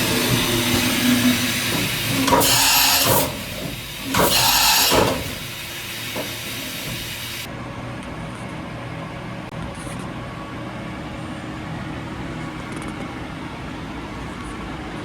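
DN Solutions SVM-4100 vertical machining center running: a steady mechanical hum with a tone, then two loud bursts of hissing air about a second long each, then a quieter steady machine hum.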